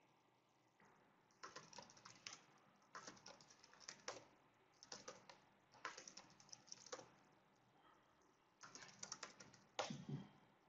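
Faint typing on a computer keyboard: short bursts of quick key clicks with pauses between them.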